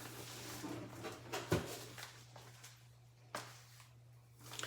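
Faint handling noises while a boxed appliance is unpacked: light rustling with two sharp knocks, one about a second and a half in and another a little past three seconds, over a steady low hum.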